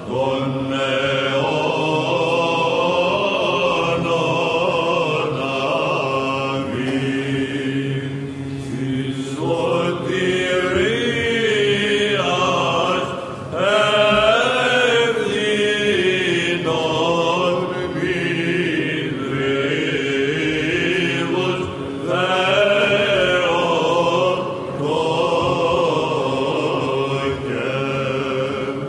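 Byzantine chant: voices sing a melismatic melody with long, ornamented phrases over a steady held drone (the ison). The phrases pause briefly a few times.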